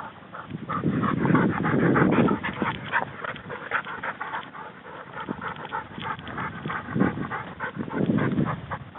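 A hunting dog panting hard in quick breaths, with bursts of low rumble about a second in and again near the end.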